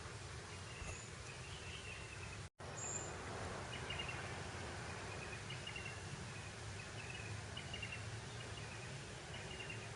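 Light breeze over grassland, a steady hiss, with small high chirps repeating every second or so from insects or birds. The sound cuts out to silence for a split second about two and a half seconds in.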